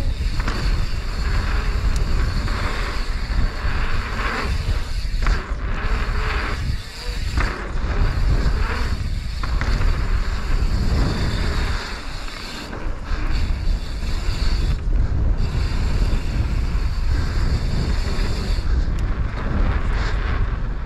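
Mountain bike ridden down a dirt flow trail, heard from a helmet or chest-mounted action camera. Wind buffets the microphone over a steady rumble of tyres and bike, with short knocks and rattles throughout.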